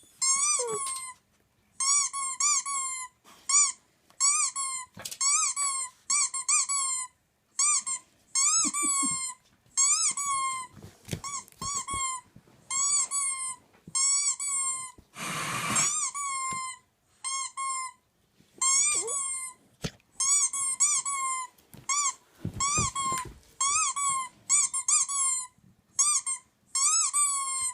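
Squeaky dog toy sound effect played back, in quick runs of two to four high squeaks repeated over and over. About halfway through a short burst of hiss-like noise cuts in for about a second.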